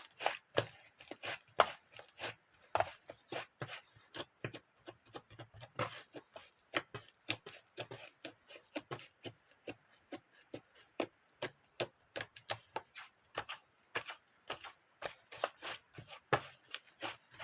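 Quick, irregular clicks and taps, several a second, from handling strawberry bingsu.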